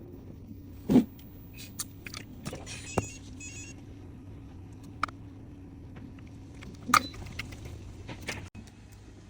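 Small hard parts being handled: a few sharp clicks and clinks, the loudest about a second in and again near seven seconds, over a steady low hum.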